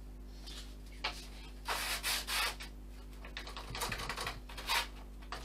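Hand rubbing and scraping strokes against the wooden fuselage of a model jet, in two spells: one about two seconds in, and a longer run of strokes from about three seconds in until near the end.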